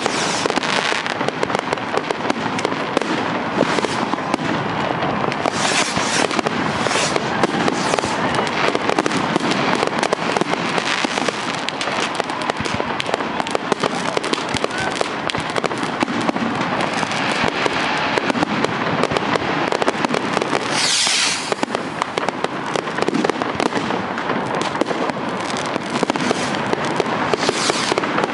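Fireworks going off all around: a dense, continuous crackle of overlapping bangs and pops from aerial rockets and firecrackers, with a brief sharper hiss about three-quarters of the way through.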